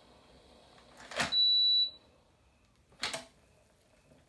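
Electric pressure cooker lid clicking as it is twisted to unlock, followed at once by a short, high, steady electronic beep from the cooker. About two seconds later a second click sounds as the lid is lifted off.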